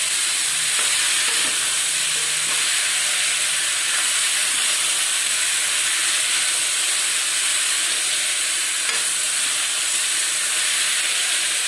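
Cubed ridge gourd and taro frying in oil and masala in a kadai, a steady sizzling hiss as a spatula stirs them.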